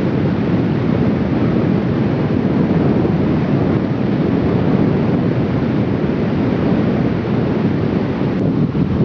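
Loud, steady wind rushing on the microphone, an even noise without any distinct tone.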